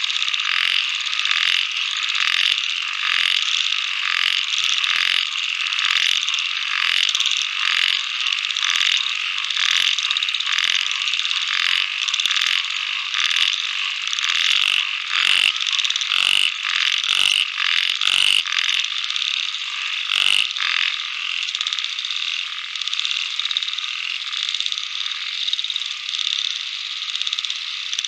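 Dense, continuous chorus of small calling animals, steady and high-pitched, with sharp clicks about twice a second that grow stronger about halfway through.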